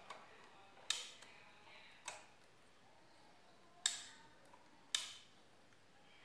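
Four sharp clicks and taps at irregular intervals, roughly a second apart, from a small metal tool and wires being handled against a circuit board.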